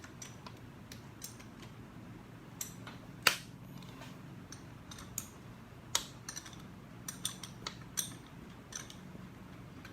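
Scattered sharp metal clicks and clinks as a milling machine's stop is adjusted by hand, the loudest about three seconds in, over a low steady hum.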